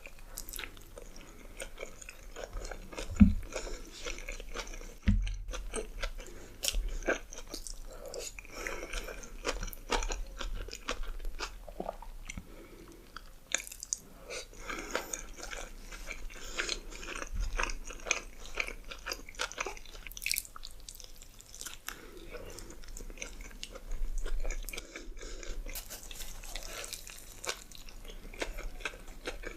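Close-miked mukbang eating: bites into juicy burgers and wet, crunchy chewing, full of small irregular clicks and smacks. A low thump about three seconds in is the loudest sound, with another near five seconds.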